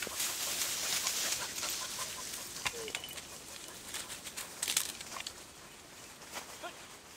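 Rustling and crackling of dry grass and reed stems close by, with many small snaps, fading toward the end. A few faint, brief animal calls sound in the distance.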